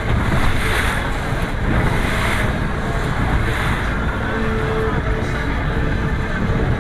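Boat motor running while under way, with wind rumbling on the microphone. Several surges of hiss come in the first two and a half seconds.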